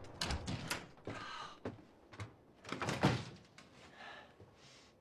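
Knocks and thumps of a house door being handled, a run of sharp knocks with the loudest thump about three seconds in, followed by a softer rustle.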